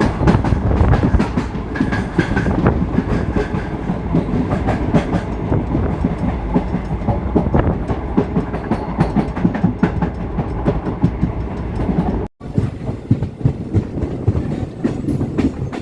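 Passenger train running along the track, heard from on board: a steady rumble with the wheels clattering over rail joints. The sound drops out for an instant about twelve seconds in.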